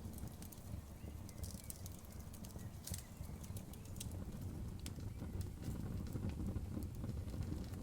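Wood campfire crackling, with irregular sharp pops and snaps over a low rumble.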